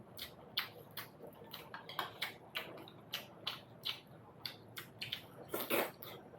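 Close wet chewing and lip-smacking of someone eating momos, short smacks about two to three a second, with one longer, louder mouth sound near the end.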